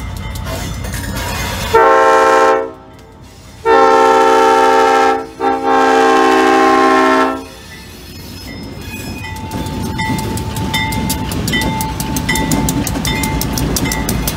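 Diesel locomotive's air horn sounding three blasts at a grade crossing: a short one, then two longer ones close together. Then the locomotive rumbles past close by, with a bell ringing steadily about twice a second.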